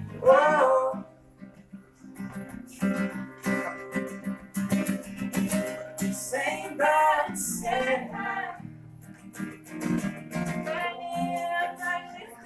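Live band music: acoustic guitar strumming, with sung notes coming in over it a few times.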